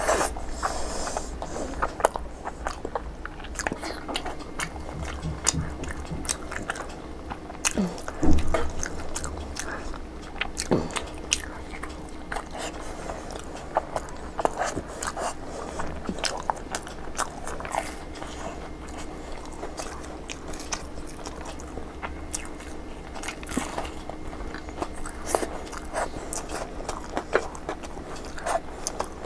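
Close-up eating sounds: steady chewing with frequent wet lip smacks, tongue clicks and finger sucking, over a faint steady hum.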